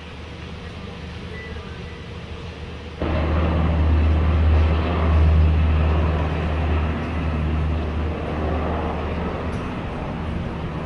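Low, steady rumble of a running vehicle engine that comes in abruptly about three seconds in, over faint background noise.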